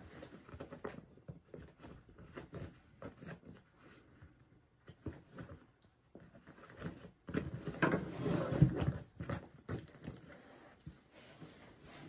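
Handling noise from a canvas and leather backpack: soft scrapes, clicks and rustles as leather straps are worked through metal buckles, with a louder stretch of canvas rustling and knocking about eight seconds in as the bag is moved and turned over.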